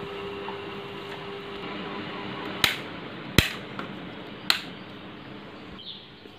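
Wall rocker switches on a switchboard being pressed: three sharp clicks, a little under a second apart, over a steady background hum.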